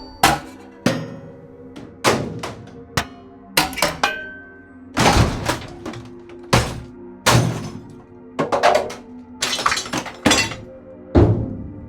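A rapid series of about a dozen heavy impact sound effects: sudden hits and crashes, some trailing off in breaking debris and some ringing on after the strike.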